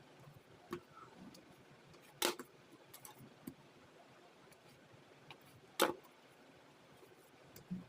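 A few sharp knocks and clicks at irregular intervals, the two loudest about two and six seconds in, over a faint steady hiss.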